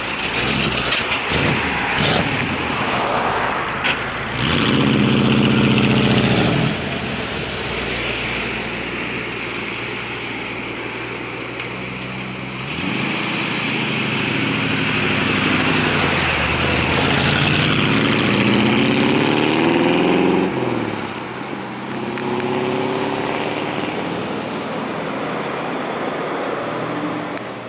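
1962 Chevrolet Impala Super Sport engine running and being revved, its pitch climbing and dropping back several times, loudest about five seconds in and again in the middle. A few knocks come in the first seconds, and near the end the car drives off and grows fainter.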